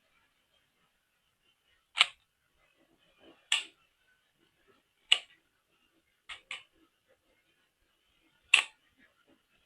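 Sharp clicks and snaps from handling toys or their packaging: about six single clicks at uneven intervals, two of them in quick succession about two-thirds of the way through.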